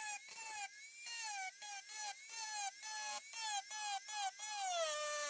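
High-speed rotary cutting tool whining as it cuts into a steel knife blade to remove a chipped section of edge. Its pitch drops each time it is pressed into the steel and comes back up as it is eased off, about twice a second.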